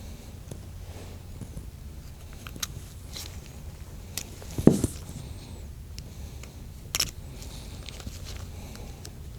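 Faint clicks and taps of a small metal pick and relay parts handled on a workbench as O-rings are worked off the valve shaft, with one louder knock about halfway through and a sharp click a couple of seconds later, over a steady low hum.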